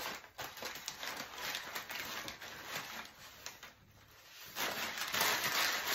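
Crumpled brown kraft packing paper rustling and crinkling as it is handled and pulled apart. It goes quiet for a moment a little past halfway, then crinkles louder near the end.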